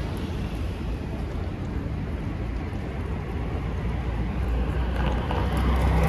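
City street traffic: a steady low rumble of vehicles, with one vehicle growing louder as it approaches over the last two seconds.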